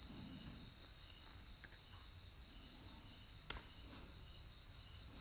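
Faint, steady chirring of crickets in the background, with a single sharp click about three and a half seconds in.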